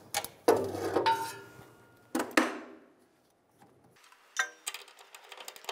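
Hand tools working steel nuts and bolts on an air-spring bracket: sharp metal clinks, some ringing briefly, in the first two and a half seconds, then a quick run of ratchet clicks near the end as the fasteners are tightened.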